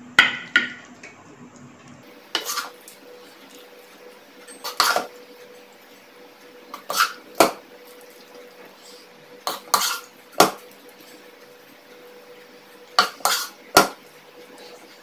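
A serving spoon knocking and scraping against a nonstick cooking pan and a glass baking dish as cooked okra curry is dished out: short sharp clinks in small clusters every two to three seconds.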